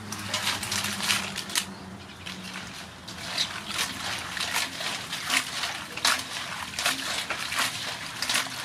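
Razor clams being washed by hand in a metal basin of water: water sloshing and splashing while the shells clatter against each other and the basin in quick, irregular clicks. The clams are tipped in from a basket at the start.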